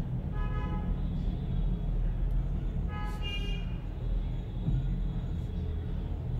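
Two short horn toots, about three seconds apart, over a steady low hum.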